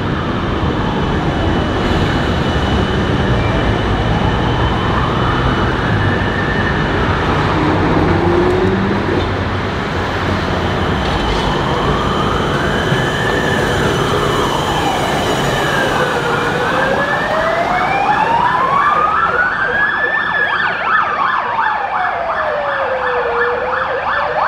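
An emergency-vehicle siren wails, its pitch rising and falling slowly about every seven seconds. Under it runs the low rumble of a W-class tram travelling along street track.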